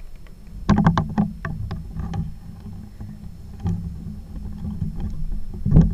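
A .22 LR rifle firing a subsonic round: one sharp shot about a second in, followed by a few quick clicks and knocks. A steady low rumble runs underneath, and a second heavy thump comes near the end.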